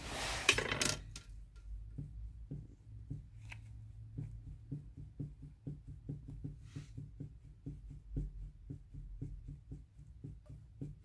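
Faint quick clicking, about three knocks a second, as a gearbox shaft is rocked back and forth: the play of a worn shaft bearing in an Opel F17 gearbox. A short rustle of handling comes first.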